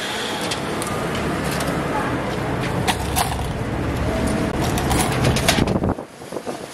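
Street noise: a steady low rumble with indistinct voices and scattered light clicks. The rumble drops away sharply about six seconds in.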